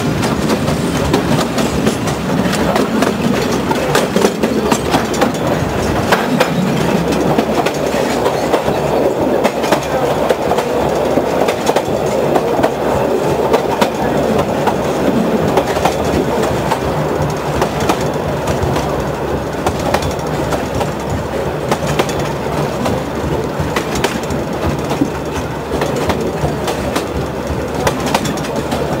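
Narrow-gauge forest railway train running, heard from aboard: a steady rumble of wheels on the track with frequent sharp clicks as the wheels cross rail joints.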